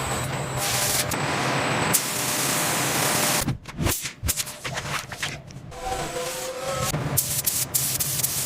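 Steady hissing and rubbing noise, broken up a little past the middle by a couple of seconds of choppy, uneven sound before the hiss returns near the end.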